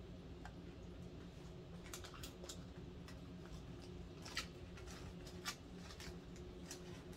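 Light clicks and crinkles of takeout food being handled and eaten: fingers picking at a lettuce cup in its paper-lined container. Two sharper clicks come about a second apart past the middle, over a faint steady hum.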